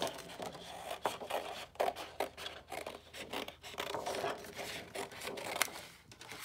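Scissors cutting through paper: a run of irregular short snips mixed with paper rustling, stopping near the end.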